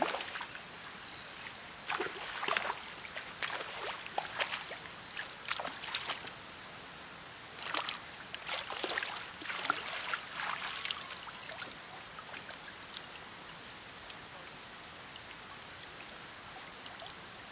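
Hooked trout splashing at the water's surface in repeated bursts as it is played on a spinning rod and drawn into a landing net, easing to light drips after about eleven seconds.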